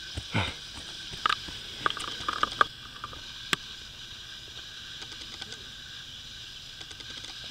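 Footfalls of a trail runner on a steep dirt path: a few scuffs and thuds over the first three and a half seconds as the runner passes close by, over a steady high hiss.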